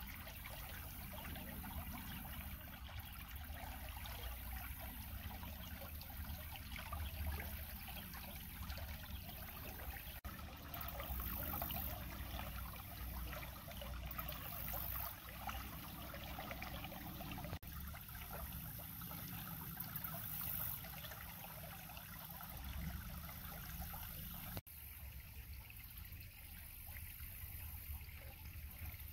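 Shallow swamp stream trickling and burbling steadily as it flows around cypress knees, over a low rumble.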